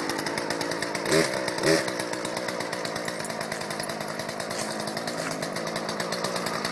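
Small gas-powered two-stroke chainsaw idling steadily, with two quick blips of the throttle about a second in.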